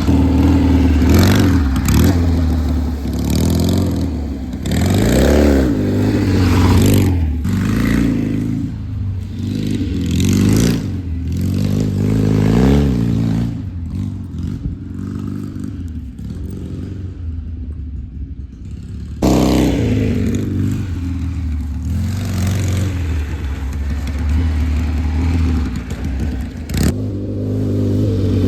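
1957 Triumph Desert Sled's parallel-twin engine being ridden, the engine note rising and falling again and again as the throttle is opened and eased off. It drops away for a few seconds about two-thirds of the way through, then comes back suddenly.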